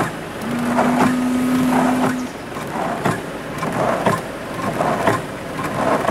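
Windscreen wiper mechanism of an Iveco-based Laika camper running just after its broken linkage was repaired and greased, the blades sweeping the glass with a scrape and knock about once a second. An arm is knocking against the other one, which the owner takes for a matter of adjustment. A steady low hum sounds for about two seconds near the start.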